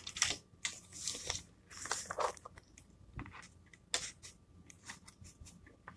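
Sheets of paper rustling and shifting as worksheets are handled, with scattered light clicks and taps.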